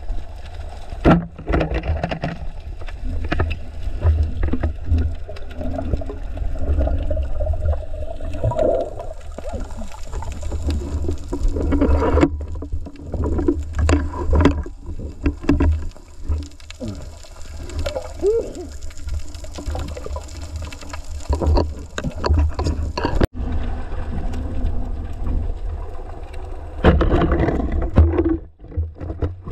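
Underwater rumble and gurgling of water moving around the camera, with knocks and scrapes as a speared fish is handled on the spear shaft.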